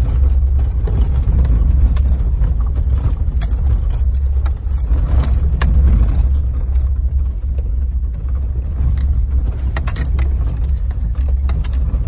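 Low, steady rumble of a vehicle's engine and drivetrain heard from inside the cab while crawling over a rough, rocky dirt trail, with frequent sharp clicks and rattles as the vehicle jolts over rocks.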